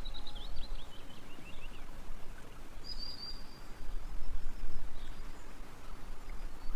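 Background noise with a low rumble, over which a bird chirps: a quick falling series of high chirps in the first second and a half, then a short high whistle about three seconds in.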